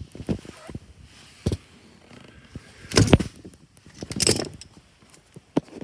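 Hands handling the tractor's cover panel: a few scattered knocks and clicks, with short rattles about three seconds in and again just after four seconds.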